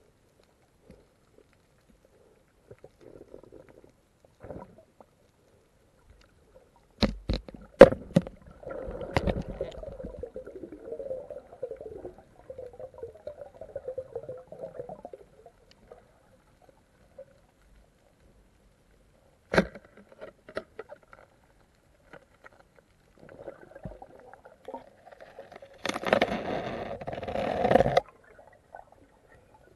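Underwater sound through a camera's housing: a few sharp knocks, two stretches of gurgling, bubbling water movement, the louder one near the end, and near quiet between.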